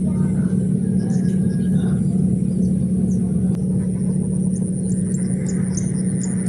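A steady low drone at a constant pitch, like a motor or engine running without change.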